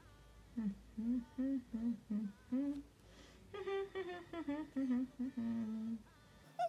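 A woman humming a tune to herself: a run of short notes, then after a brief pause a second phrase of longer held notes that starts higher and steps down.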